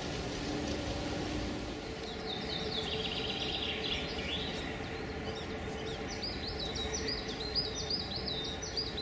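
Woodland birds singing over a steady low background rush: a trill about two seconds in, then a quick series of short rising notes, about four a second, through the last three seconds.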